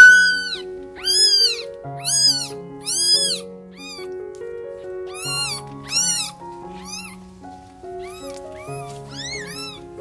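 Newborn kitten mewing over and over: high, thin cries that rise and fall, about a dozen of them, loudest in the first half and fainter near the end. These are the distress cries of a kitten separated from its mother. Soft background music plays underneath.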